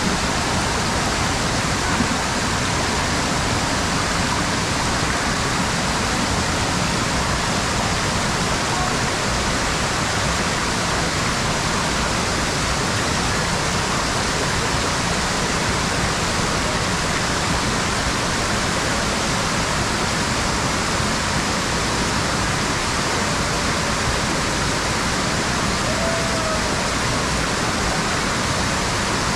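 A waterfall's steady, even rush of water.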